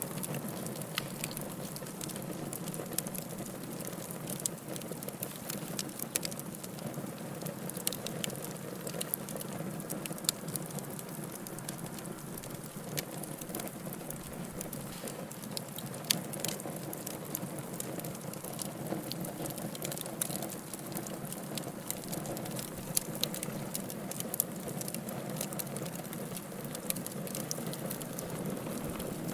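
Wood fire burning in a fireplace: a steady hiss and low rustle of flames with irregular sharp crackles and pops from the burning wood.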